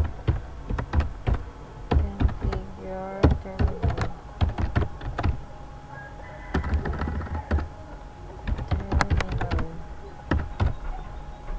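Computer keyboard being typed on, an irregular run of sharp key clicks with short pauses, as a command is typed out and corrected.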